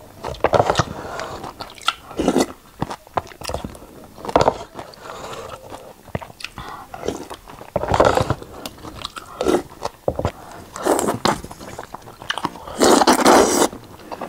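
Close-miked eating of wide glass noodles from a bowl of broth: a series of wet slurps with chewing between them, the longest slurp lasting about a second near the end.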